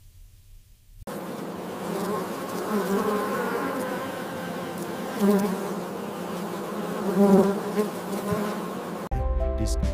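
Honeybees buzzing: a dense, steady hum of many bees that starts about a second in and swells twice. Music takes over near the end.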